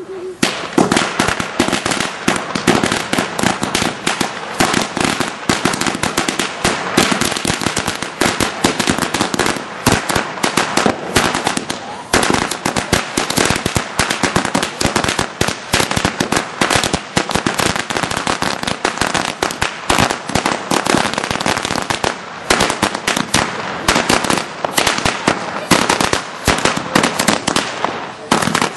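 A long string of firecrackers going off on the ground, a rapid unbroken run of sharp bangs and cracks starting about half a second in.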